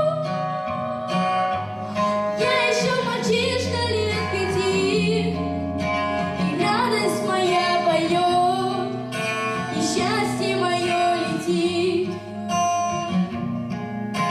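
A boy singing a melody through a handheld microphone over a recorded backing track with guitar.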